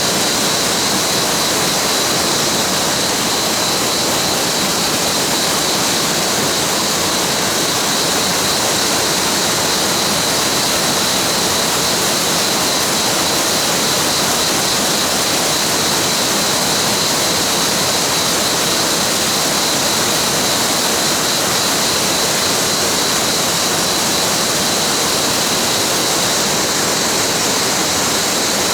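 Mountain waterfall: a steady, loud rush of falling water, unchanging throughout.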